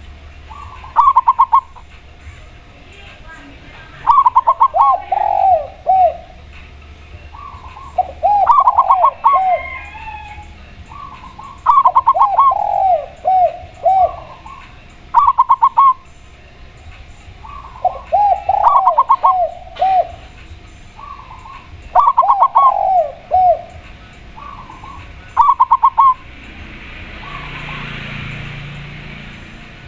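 A spotted dove and a zebra dove cooing back and forth: short, quick clusters of higher cooing notes alternate with lower series of three or four rolling coos, every few seconds. A soft rushing noise swells and fades near the end.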